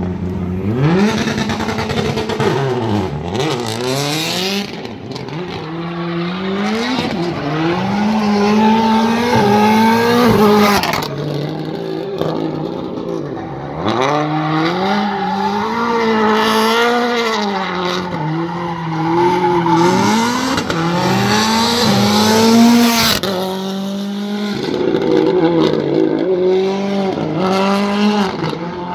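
Rally car engine revving up and down over and over as the car drifts around a course, its tyres squealing through the slides.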